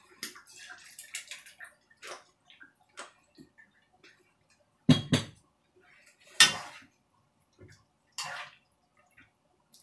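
Kitchen clatter of a curry being seasoned and stirred: light clinks and knocks of bottles being handled, a metal spoon striking and scraping a frying pan, with two louder knocks about five and six and a half seconds in.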